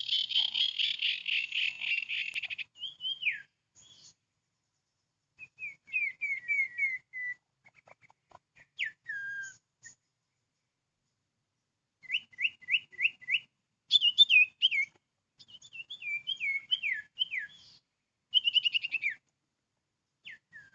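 Sirtu (common iora) calls: a dense rapid trill for the first couple of seconds, then bursts of short whistled notes, many sliding down in pitch, separated by pauses.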